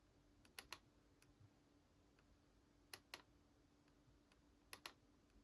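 Near silence with a faint steady hum, broken by three pairs of quick, faint clicks: computer mouse clicks.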